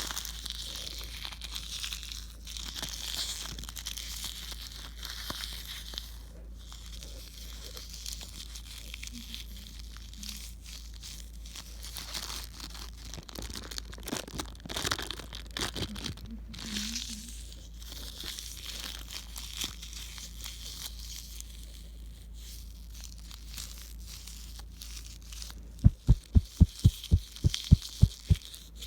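Crinkling, crackling noise with many small clicks over a steady low hum. Near the end comes a quick run of about a dozen low thumps, roughly five a second.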